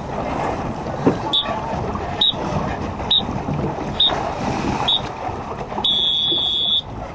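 Electronic timer beeping a race-start countdown: five short high beeps about a second apart, then one long beep. Underneath is a steady wash of wind and water.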